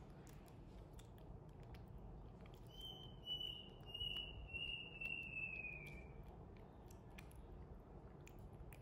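Baby monkey being spoon-fed porridge, with faint smacking clicks of eating throughout. About three seconds in it gives a string of high-pitched squeaks that run together into one slowly falling whine lasting about three seconds, the loudest sound here.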